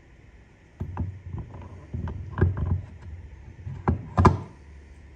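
Centre differential being lowered into a Land Rover LT230 transfer case and worked into place, metal parts knocking and clunking against the case and gears. The knocks are irregular, starting about a second in, with the two loudest near the end.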